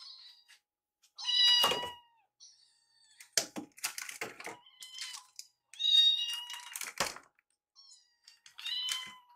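Young kittens meowing up at a person, begging for their meal: three loud, long, high-pitched meows about a second in, around six seconds and near the end, with shorter, fainter mews and a few light clicks or taps between.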